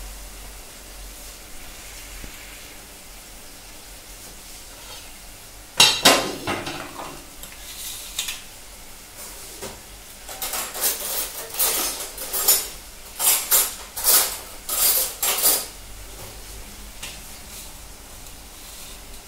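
Steel cutlery clattering in a pull-out kitchen drawer as someone rummages through it for a fork. There is one sharp metal clank with a ringing tail about six seconds in, then a run of clinks between about ten and sixteen seconds.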